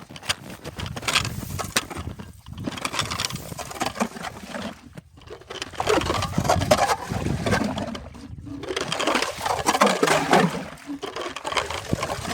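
Uneven crunching and scraping on snow and ice, in bursts of a few seconds with short pauses between.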